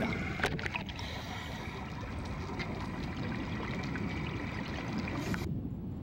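Underwater ambience: a steady low rumbling wash of water noise, with a few faint clicks in the first second. The higher part of the noise drops away abruptly near the end.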